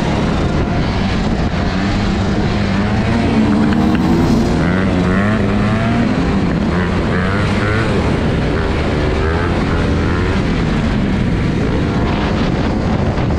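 Motorcycle engines running over a loud, steady rumble, their pitch repeatedly rising and falling as they rev and ease off.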